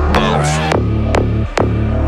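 Hip-hop backing track: a deep sustained bass with sharp drum hits about twice a second.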